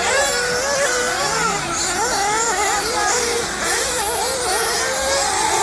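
Several radio-controlled off-road racing buggies running on the track together. Their small engines whine at a high pitch that rises and falls over and over as each car throttles up and backs off.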